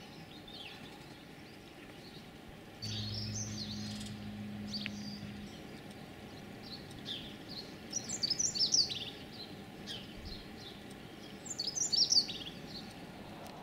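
Small songbirds chirping and twittering in short high-pitched bursts, loudest about two-thirds of the way through and again near the end. A low steady hum comes in about three seconds in and stops a couple of seconds later.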